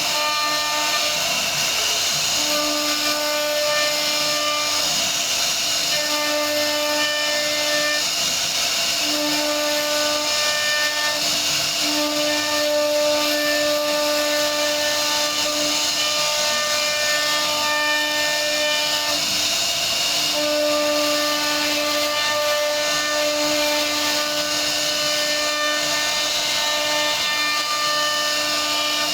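CNC router carving wood: the spindle's steady high hiss of cutting, with a pitched machine whine that cuts in and out every second or two as the cutting head moves.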